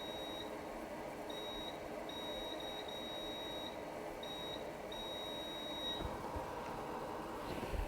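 Multimeter continuity beeper sounding in about six high beeps of uneven length as the probes touch and lift off a circuit-board line, stopping about six seconds in. The beep shows continuity to ground: the iPhone's PP_VDD_MAIN line reads as shorted. A couple of faint clicks follow.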